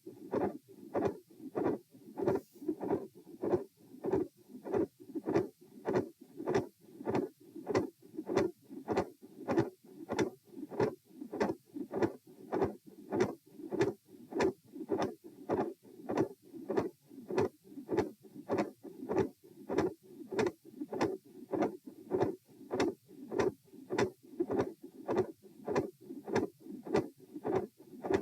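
Human heartbeat heard through a stethoscope: a steady, even run of lub-dub heart sounds with no pauses. It is labelled as carrying a midsystolic murmur and a split second heart sound.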